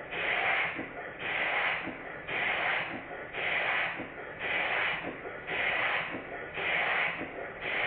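Rebuilt circa-1896 model horizontal steam engine running on test, its exhaust hissing in even rhythmic puffs about once a second, with a light tick at each puff.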